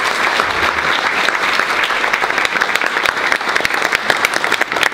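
Audience applause: many people clapping steadily in a large hall.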